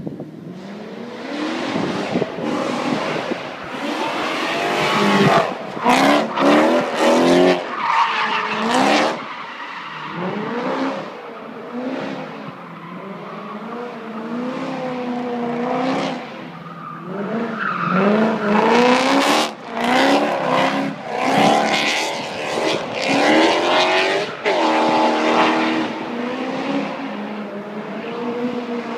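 A drift car's engine is revved hard, its pitch rising and falling again and again as the car drifts. Its tyres squeal and screech under the slide.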